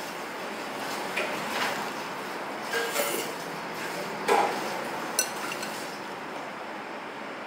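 Chopsticks clinking and scraping against a ceramic bowl while eating: about half a dozen light, separate clinks, the loudest about four seconds in, over a steady background noise.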